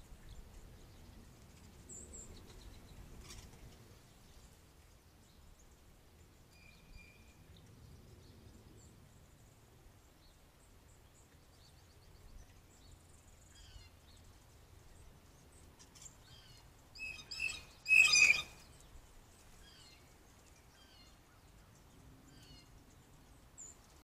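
Blue jays calling, with a short burst of loud calls about two-thirds of the way through. Fainter chirps of other small birds come and go throughout.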